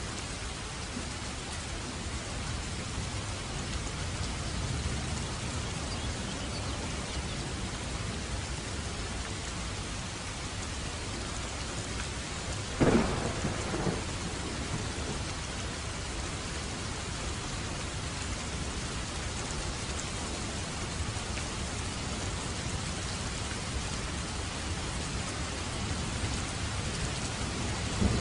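Steady rain with a low rumble of thunder underneath, and a sharp thunderclap about halfway through, followed by a smaller crack a second later.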